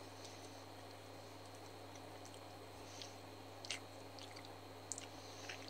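Faint mouth sounds of a person eating ice cream off a spoon: a few soft smacks and clicks, a couple of them sharper in the second half.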